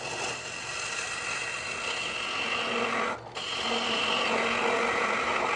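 Wood-turning chisel cutting a spinning wooden ball blank on a homemade belt-driven lathe: a steady scraping hiss over the lathe motor's hum, breaking off briefly about three seconds in.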